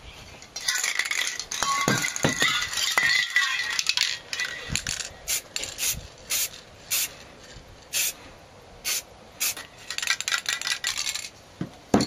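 Aerosol spray paint can hissing: a long spray with a few knocks of the can, then about seven short quick puffs, then another longer spray near the end.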